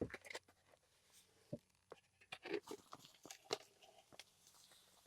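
Faint, irregular crunches and clicks of sand being scooped with a measuring cup and tipped into a cement mixing tub.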